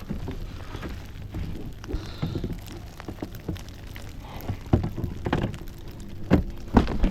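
Knocks and taps of a long-reach lockout tool working against the inside of a car door to unlock it, louder and closer together in the last couple of seconds, over a steady hiss.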